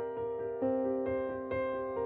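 Slow, gentle solo piano music, single notes struck one after another over held tones.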